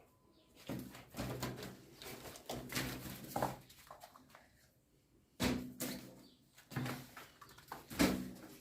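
Animal calls and scuffling in a series of short, low-pitched bursts, about five of them, the loudest near the end.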